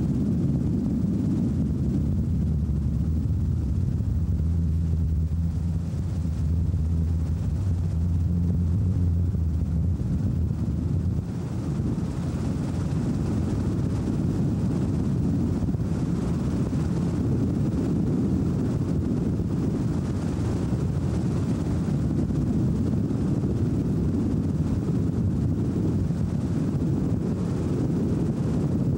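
Robinson R22 helicopter in cruising flight, its rotor and four-cylinder Lycoming piston engine making a steady low drone as heard on board, with wind rush. A steady low hum stands out over the drone for the first ten seconds or so.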